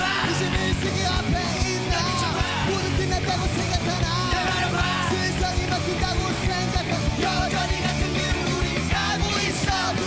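Punk rock band playing live: male lead vocals sung loudly over electric guitar and bass, with a steady beat.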